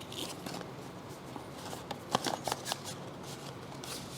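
Rustling and light clicks of a laptop power cable and charger being handled, with a quick cluster of sharper clicks about two seconds in.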